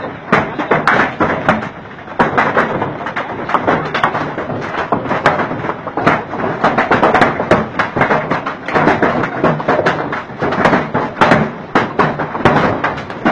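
Golf-ball-sized hail pelting down: a dense, irregular clatter of hard hailstone impacts over a steady rush of the storm.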